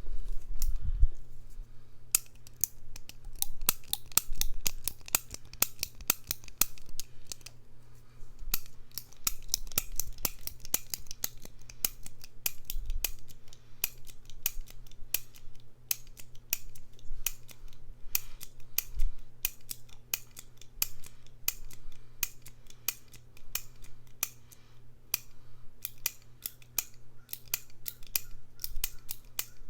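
Rapid, crisp clicking or snipping close to the microphone, many clicks a second, starting about two seconds in with a short pause around eight seconds.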